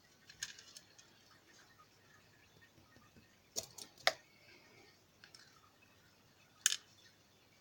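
A few sharp little metallic clicks and taps, spaced out with quiet between them: small lock pins being spread and sorted in a pin tray, with a short cluster of clicks around the middle.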